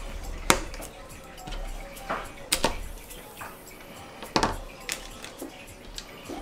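Sharp clicks and light metallic clinks of a small screwdriver and airsoft gearbox parts being handled and set down on a cutting mat, about half a dozen, the loudest about half a second in.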